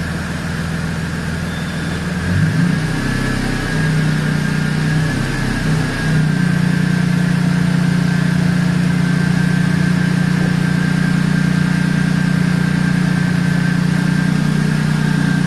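Toyota Tacoma pickup engine idling, its pitch wavering for a few seconds before settling into a steady run, with a thin steady high whine above it.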